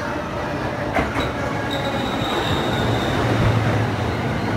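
A JR East E231-series Yamanote Line electric commuter train pulling in alongside the platform. Its rumble grows louder as it comes in. There are a couple of clacks about a second in, and a high steady squeal starts about two seconds in and lasts a second or so.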